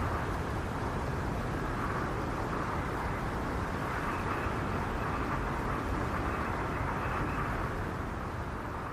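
Snowstorm wind howling steadily, a constant rushing noise with a higher whistling band that swells and eases slowly, strongest around four to seven seconds in.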